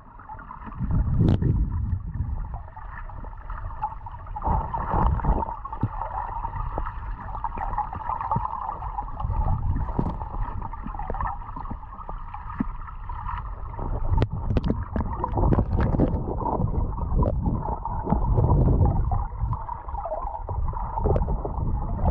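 Water heard through a camera held underwater: a muffled, steady rushing with a low rumble and a few scattered clicks and knocks.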